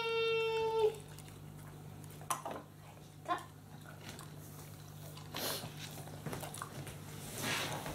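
Labradoodle whining: one long, high, steady note that stops about a second in. After it, a few faint taps and soft breathy noises.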